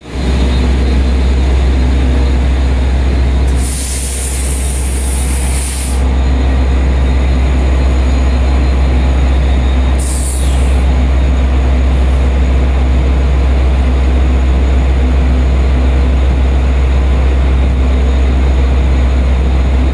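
LIRR DM30AC diesel locomotive running steadily with a loud, deep rumble. A high air-brake hiss lasts about two seconds a few seconds in, and a shorter, falling hiss comes about ten seconds in.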